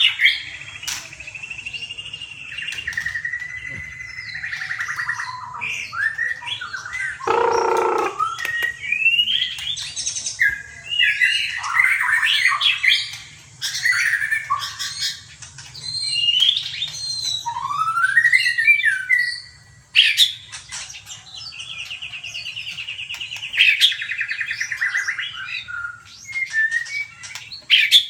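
Songbirds singing and calling: overlapping chirps, whistled glides and rapid buzzy trills, with a faint steady low hum underneath.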